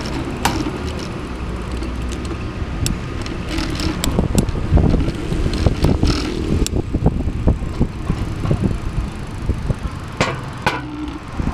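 Bicycle rolling over concrete footpath and a road crossing, with a steady low rumble and many short knocks and rattles from bumps in the surface, thickest around the middle. Cars running on the road alongside.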